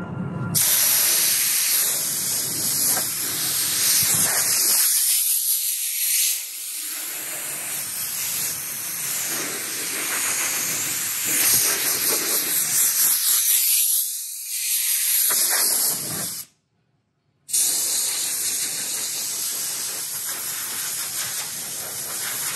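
Compressed-air blow gun hissing steadily as it blows sanding dust off a freshly sanded car hood before paint. The flow eases twice and stops for about a second a little past halfway, then resumes.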